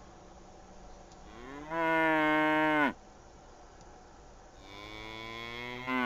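Dairy cows mooing: two long moos. The first starts about a second in, holds for over a second and drops off at the end. The second builds up near the end and ends with a falling pitch.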